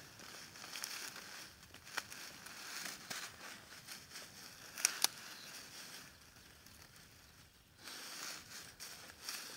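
Dry straw sheaves rustling and crackling as hands work a rope tie around them, with a few sharp clicks, the loudest two in quick succession about five seconds in.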